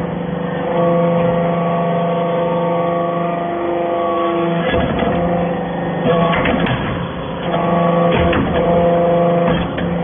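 Hydraulic steel-chip briquetting press running: a steady machine hum made of several held tones, which shifts in pitch about midway as the ram works the steel powder. Clusters of sharp metallic clanks and knocks come about five seconds in, again between six and seven seconds, around eight seconds and near the end.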